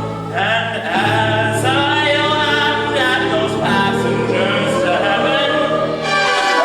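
A chorus of stage-musical singers singing a lively show tune together, with sustained low notes underneath.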